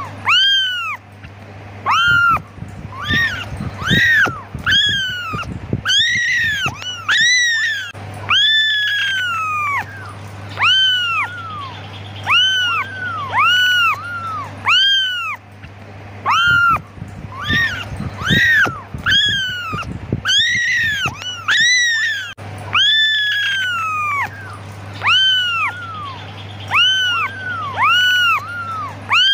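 Several young kittens mewing over and over, high-pitched calls that rise and fall, about one or two a second and often overlapping: kittens calling for their mother. A steady low hum lies underneath.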